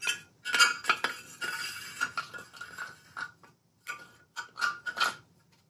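Steering shaft of a VW Mk1 Rabbit being slid into its steering column tube and bearing race: metal scraping and rubbing for the first few seconds, then a few light clicks and knocks as it seats.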